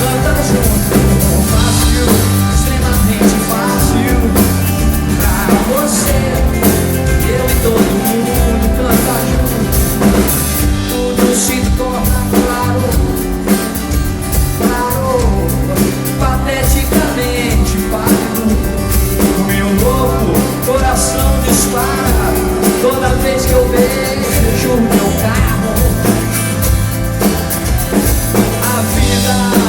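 Brazilian pop-rock band playing live at full volume: drum kit, bass and electric guitar keep a steady beat, with a vocal melody over them.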